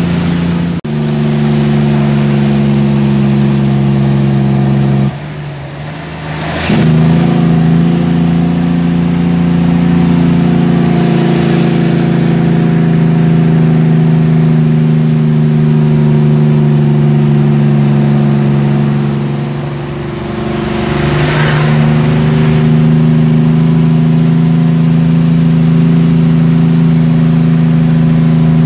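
Cummins ISX15 diesel of a Kenworth T800 tractor-trailer running steadily. Its note drops briefly twice, about five seconds in and again around twenty seconds in, with a short hiss each time, before the engine pulls again.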